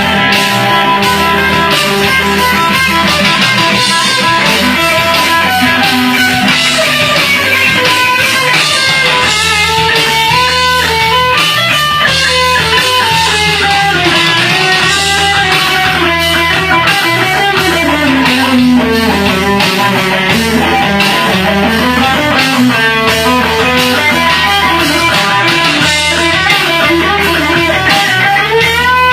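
Electric guitar solo: a melody of long held notes that bend and slide in pitch, over a backing track with a repeating bass line.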